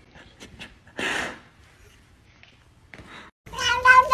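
A domestic cat's long, drawn-out meow begins near the end and slowly slides down in pitch. It is the loudest sound. It follows a short breathy rush about a second in and a few faint clicks.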